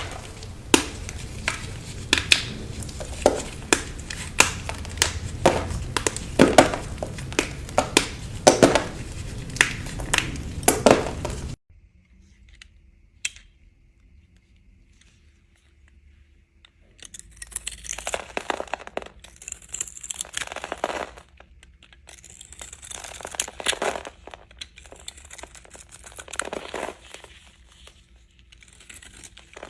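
A knife cutting through bars of dry soap, with crunchy, crackling strokes every second or so. The sound drops away suddenly about twelve seconds in, and softer cutting starts again about five seconds later.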